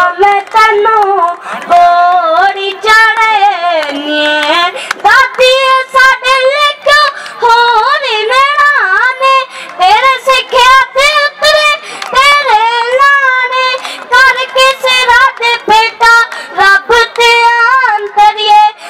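A boy singing a Punjabi song solo into a microphone, his high child's voice carried over the stage loudspeakers in a gliding, ornamented melody.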